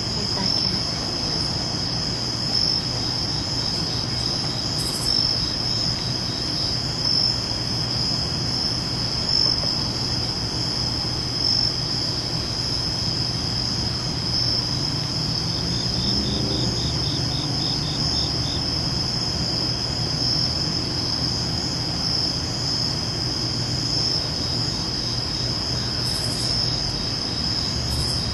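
Crickets singing at night, a steady high-pitched trill, with a brief faster pulsing insect call about halfway through and a low steady hum underneath.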